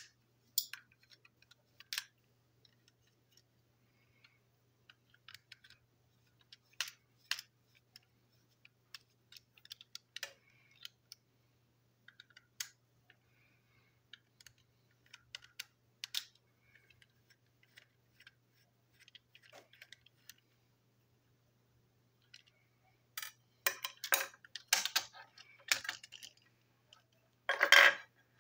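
Small plastic and metal parts of a toy train engine being handled and taken apart: scattered light clicks and taps, then a quicker run of clattering and rattling near the end as the plastic body comes off the chassis.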